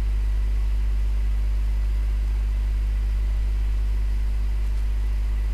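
Steady low electrical hum in the recording's background, with a row of fainter, evenly spaced overtones above it. A faint click comes near the end.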